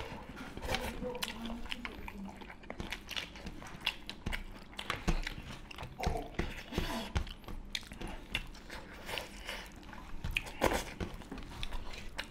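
Close-miked chewing, biting and mouth smacks as two people eat chicken and rice with their hands, with many irregular sharp clicks.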